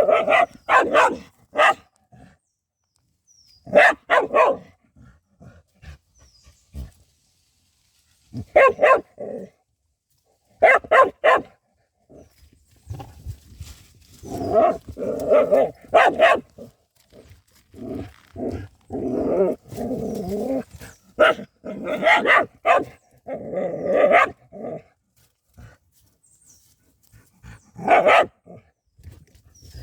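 Dog barking at a badger in repeated bursts of several quick barks, with silent pauses of a few seconds between bursts. The barking is densest in the middle stretch.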